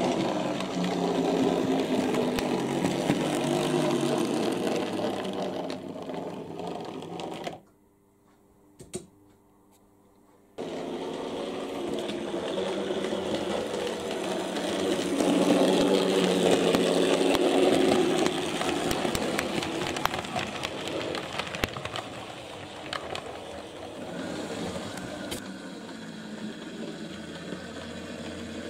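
Electric motor of a model railway locomotive whirring as the train runs along the track, with light clicking from the wheels on the rails. It breaks off into near silence for a few seconds about eight seconds in, then runs again and is loudest around the middle.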